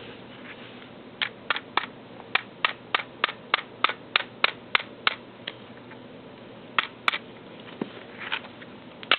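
A hammer tapping the takedown pin back into a Hi-Point C9 pistol's frame, driving it home during reassembly: about a dozen sharp taps, roughly three a second, starting about a second in, then a few single taps near the end.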